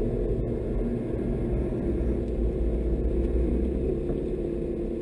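Renault Mégane 3 RS Cup's turbocharged four-cylinder engine running low and steady as the car creeps forward at low speed, heard from inside the cabin as a deep, even drone.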